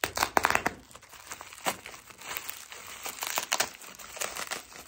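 Plastic packaging crinkling and tearing as it is cut and pulled open by hand: a busy, irregular run of crackles and rustles.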